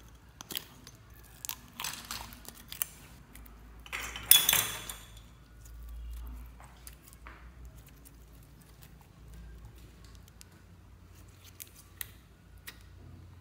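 Hands handling clear plastic slime containers and clear slime: a run of sharp plastic clicks and crackles, with a louder, longer crackling burst about four seconds in. After that it is mostly quiet, with a couple of clicks near the end.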